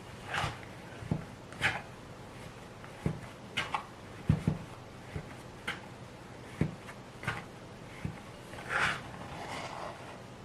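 Hands working bread dough on a work surface: irregular soft thumps against the board, a dozen or so, mixed with brief brushing and rubbing noises. The longest rubbing noise comes near the end.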